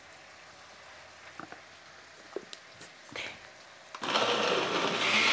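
A few light clicks and knocks as the blender jar is handled. Then, about four seconds in, an electric countertop blender starts up and runs steadily, grinding tomatoes with onion, garlic, chipotle chile and oregano into a salsa.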